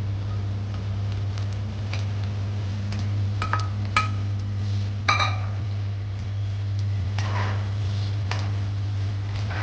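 Cooking utensils knocking and clinking against cookware: a handful of light knocks, with one ringing clink about five seconds in, over a steady low hum.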